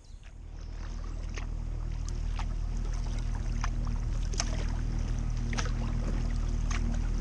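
Kayak paddle strokes dipping into the water about once a second, over a low steady rumble that swells up over the first couple of seconds.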